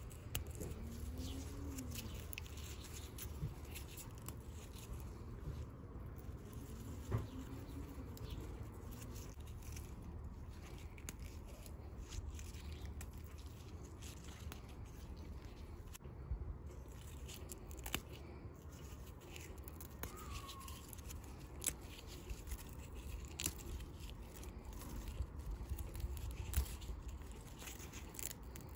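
Basil leaves and stems rustling and snapping as they are picked by hand: scattered small clicks and crackles over a steady low rumble.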